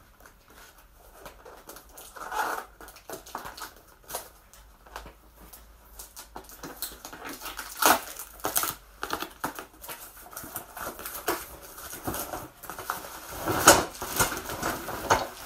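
Long cardboard box of a keyboard stand being handled and its end flap pulled open: cardboard rustling and scraping with scattered knocks, the loudest about eight seconds in and near the end.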